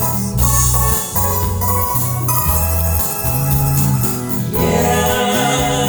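Instrumental music with a steady bass line changing note every half second or so under held keyboard chords; the accompaniment grows fuller about four and a half seconds in.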